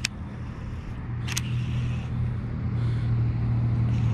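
Low, steady engine hum of a nearby motor vehicle, slowly growing louder, with a sharp click at the start and another about a second and a half in.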